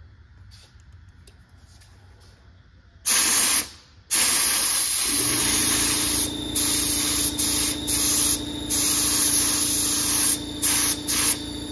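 Harbor Freight purple HVLP gravity-feed paint gun spraying primer: a short blast of air about three seconds in, then a near-continuous loud hiss that breaks off briefly several times. A steady low hum sets in about a second after the long spray begins.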